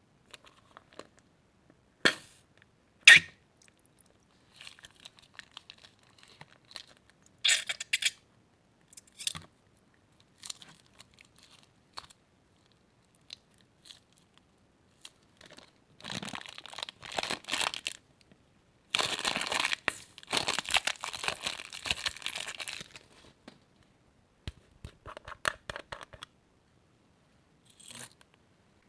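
Crunchy slime being handled, with bursts of crackling and popping: two sharp pops in the first few seconds, then longer runs of dense crackling in the second half.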